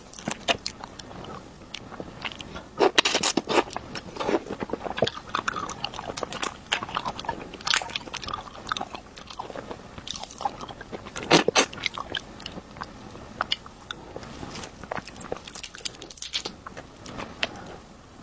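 Close-miked eating sounds: a person biting and chewing food with crisp, crunching clicks, with louder bursts of bites about 3, 8 and 11 seconds in.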